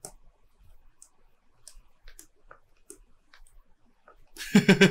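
Scattered faint clicks of a mouse or pen tablet while drawing on a computer. About four and a half seconds in, a much louder pitched sound starts and pulses rapidly.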